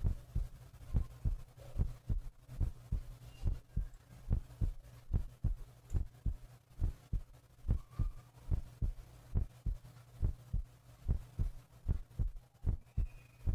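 Human heartbeat picked up by a phonocardiograph's chest sensor, in a steady rhythm of paired low thumps (lub-dub), a little faster than one beat a second. A steady low electrical hum runs underneath.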